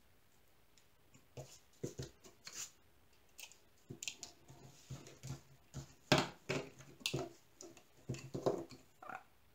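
Scattered light clicks and taps of clear acrylic holder panels and small screws being handled and fitted together, the loudest a little past halfway.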